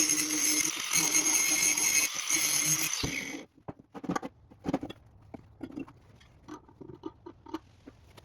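Welding arc crackling steadily, then cutting off sharply about three and a half seconds in, followed by a few light clicks and knocks.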